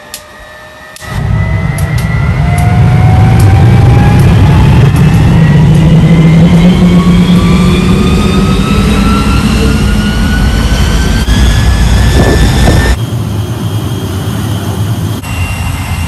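Spirit of Australia II's Bristol Siddeley Orpheus turbojet being started: igniters tick over the rising whine of the spool-up. About a second in the engine lights up with a loud, deep roar, and the whine keeps climbing in pitch as it runs up. Near the end the sound drops to a lower, steady level while still running.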